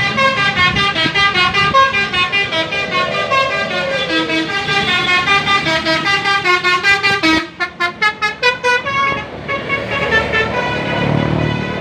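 Bus telolet horn, a multi-tone musical air horn, playing a fast melody of short pitched toots that breaks into quick choppy blasts and then fades to fainter notes over a low rumble near the end.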